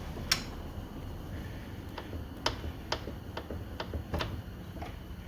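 Light metallic clicks and taps, about eight at irregular intervals, as the rear brake caliper bracket is worked loose and lifted out on a 1988 Honda Goldwing, over a low steady hum.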